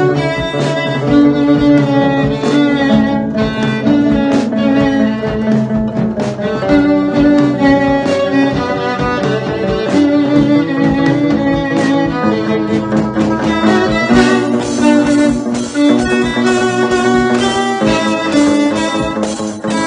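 Instrumental cover of a pop-rock song, with bowed strings carrying held melody notes over plucked or strummed guitar chords.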